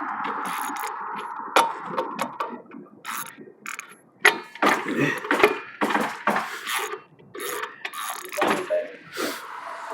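Hand tools working on a car wheel's lug nuts: a string of irregular sharp metal clicks and knocks, some ringing briefly.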